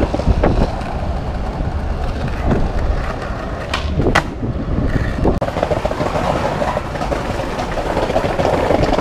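Skateboard wheels rolling over stone paving slabs. About halfway through, a sharp snap as the tail pops the board into the air, then a clack as it lands about half a second later.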